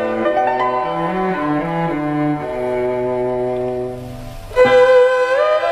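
Background instrumental music with sustained low notes moving step by step; it drops away briefly about four seconds in, then comes back louder on a held high note.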